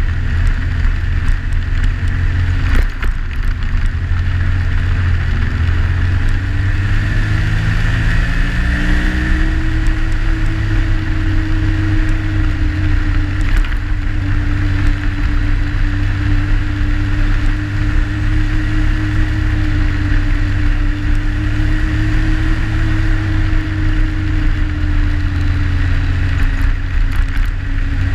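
Yamaha Sidewinder snowmobile's turbocharged three-cylinder four-stroke engine running at trail speed, heard from on board with track and rushing noise. The engine note climbs as the sled speeds up about six to ten seconds in, then holds steady at cruise, easing off slightly near the end.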